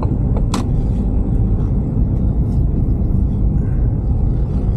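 Steady low rumble of a car in motion, heard from inside the cabin, with one sharp click about half a second in.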